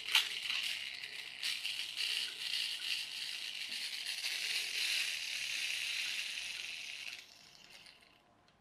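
Toy friction motor's plastic gears and flywheel whirring as the wheel is turned to wind the flywheel up, after a single click right at the start. The whir runs steadily for about seven seconds, then stops fairly suddenly.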